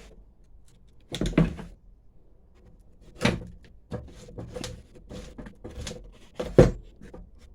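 Knocks and clatter of a lawnmower's front-axle parts being worked loose from its plastic deck, with three louder knocks about a second, three seconds and six and a half seconds in among smaller clicks.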